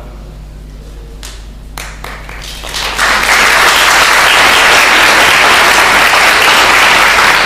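Audience applause. A few scattered claps come first, then about three seconds in it swells into loud, dense, steady clapping.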